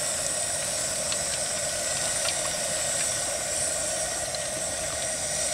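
Hot oil sizzling and bubbling in a large pot fryer with Twinkies frying in it: a steady hiss.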